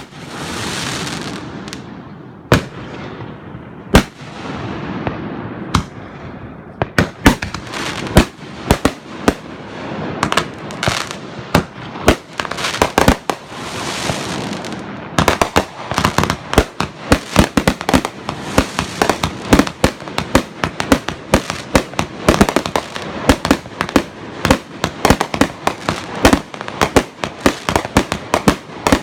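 Fireworks display: aerial shells bursting with sharp bangs, the first few spaced out and followed by long hissing trails, then from about seven seconds in a rapid barrage of several bangs a second that grows denser toward the end.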